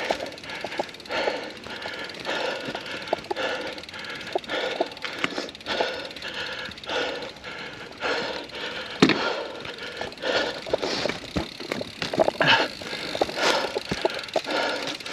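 Mountain bike ridden over rough trail: tyre noise with a constant jumble of rattles, clicks and knocks from the chain and frame, and a sharp knock about nine seconds in.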